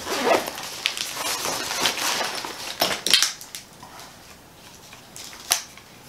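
Rustling and handling of a padded nylon meter pouch as a clamp meter is pulled out of it, with a few sharp knocks and clicks, the loudest about three seconds in and another near the end.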